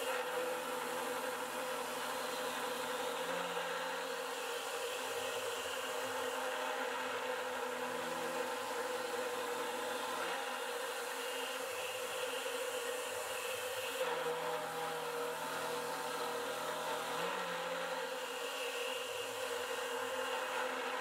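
Converted PM25MV CNC milling machine facing an aluminum block with a Tormach 38 mm (1.5-inch) four-flute face mill turning at 2500 RPM: a steady whirring cutting noise with a constant hum. Lower tones come and go as the cutter moves across the part.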